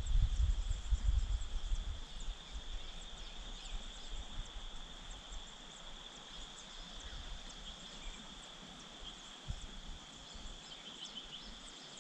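Steady high-pitched insect drone with many faint, short bird chirps over it. A low rumble, like wind on the microphone, is loudest in the first couple of seconds, then fades.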